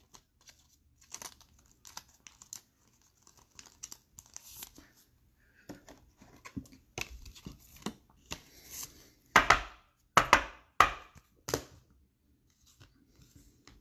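Plastic card sleeves and wrapping rustling and crinkling as trading cards are handled, with many small clicks and a run of four louder rustling strokes about nine to twelve seconds in.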